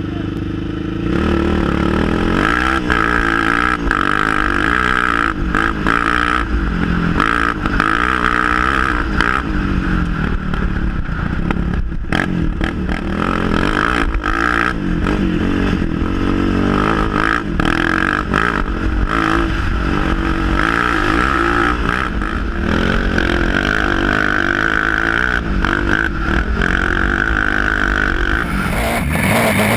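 Yamaha Raptor 700 sport quad's single-cylinder engine pulling away about a second in, then revving up and falling back again and again at speed, with sharp clatters from the bumpy dirt track.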